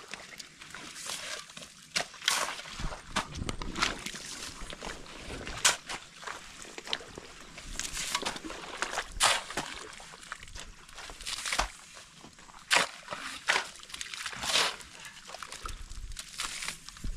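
Spades and a hoe cutting into waterlogged mud, with irregular sloshing and squelching strokes as wet soil and muddy water are scooped and churned.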